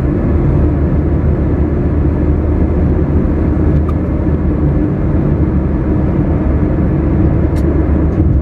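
A car being driven, a steady low engine and road rumble.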